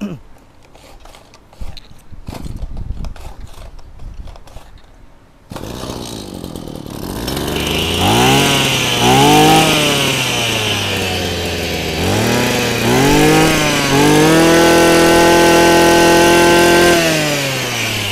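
A few clicks and knocks, then a Maruyama two-stroke brush cutter engine starts on its spring-assisted recoil starter about five seconds in. It idles, is revved up and down in four short blips, then is held at high revs for about three seconds before settling back to idle near the end.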